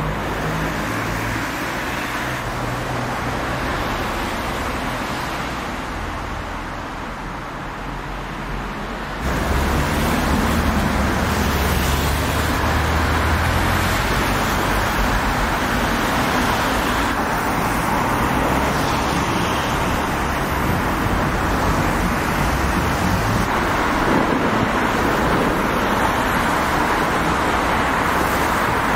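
City street traffic: cars driving by on a wet road with a steady hiss of tyres, louder from about nine seconds in.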